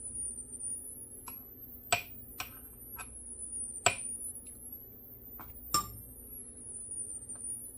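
A spoon clinking and tapping against a glass jar: several sharp, ringing clinks, the three loudest about two seconds apart, with lighter taps between.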